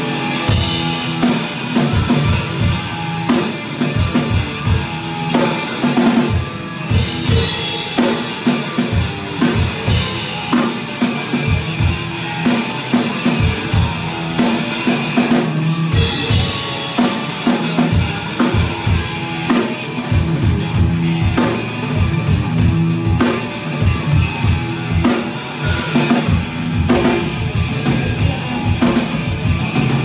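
Live rock band playing: a drum kit driving the music with a fast, steady bass-drum pulse, snare hits and cymbals, under electric guitar.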